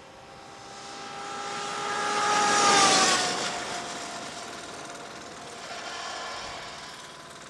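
Electric TTXGP racing motorcycle passing at speed: its motor's whine and the rush of tyres and wind grow louder, peak about three seconds in as it goes by and drop in pitch, then fade, with a smaller swell about six seconds in.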